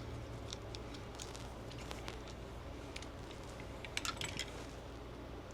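Scattered light clicks and taps of small parts being handled while a pistol light's Torx mounting screw is loosened and the light is taken off the frame, with a quick cluster of clicks about four seconds in. A low steady hum runs underneath.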